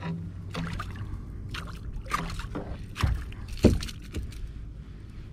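Water splashing and knocks around a fishing kayak as a small hooked flathead is fought beside it. A string of short, sharp sounds, the two loudest about three and nearly four seconds in.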